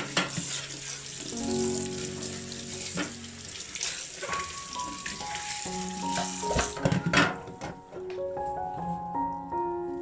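Tap water running and splashing onto a clear plastic fridge shelf in a stainless steel sink while it is rubbed clean by hand. The water stops about seven seconds in, followed by a few knocks. Piano music plays underneath.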